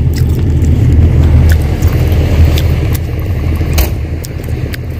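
A steady low rumble throughout, with a few sharp clicks and taps, likely dishes and food containers being handled.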